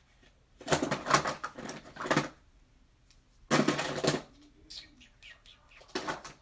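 Makeup pencils clattering against each other as a hand rummages through a collection of lip liners, in three bursts, the last one brief near the end.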